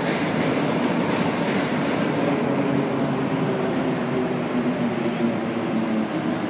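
Inside a rubber-tyred Montreal Metro Azur train as it pulls into a station: a steady rolling rush with a low, even hum underneath, easing slightly near the end.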